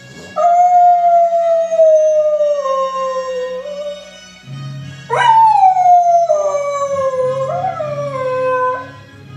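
Staffy–Kelpie–spaniel cross dog howling along to orchestral theme music: two long howls, the first starting about half a second in and slowly falling in pitch, the second starting about five seconds in with a sharp upward swoop, then sliding down with a wavering rise near its end.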